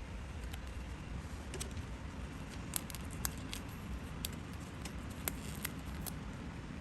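Paper and crafting tools being handled: scattered sharp clicks and ticks, bunched in the middle, over a steady low hum.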